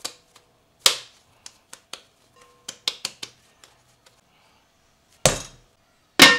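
Dough ball being handled and turned in a glass mixing bowl, with a knock and a run of light taps against the glass. Near the end come two louder knocks as a round wooden board is set down over the bowl.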